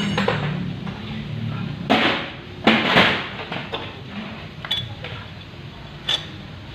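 Metal clinks and knocks of parts and tools being handled on a Honda XRM110's stripped-down engine. The loudest knocks come about two and three seconds in, with lighter ones later.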